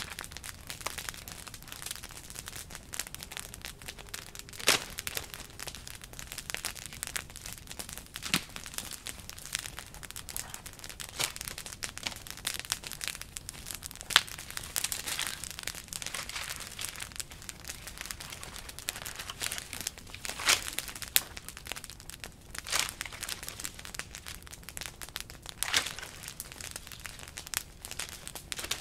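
Dry wood crackling, with several sharp snaps standing out from a steady run of fine crackles: a campfire of dry sticks burning while dead branches are gathered and broken for firewood.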